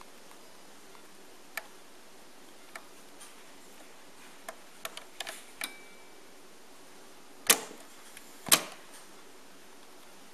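Sanyo RD 5372 cassette deck's transport buttons being pressed: scattered light clicks, then two much louder clacks about a second apart near the end as the deck goes into record and pause.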